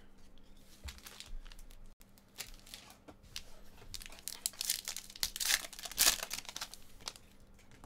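Foil trading-card pack being crinkled and torn open by hand. The crackling tear is loudest about five to six seconds in.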